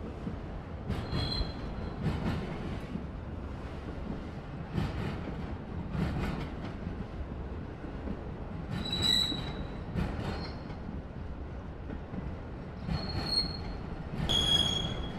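Freight train of autorack cars rolling slowly past, with a steady rumble and irregular knocks of wheels over the rails. Short high-pitched wheel squeals break out about five times, the loudest near the end.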